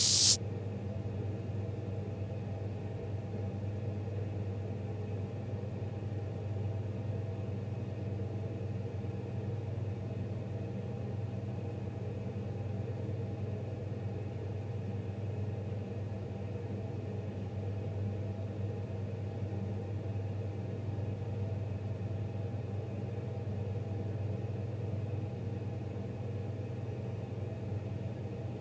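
Steady low droning hum from the film's sound design, a few held low tones that barely change, after a loud hiss cuts off abruptly at the very start.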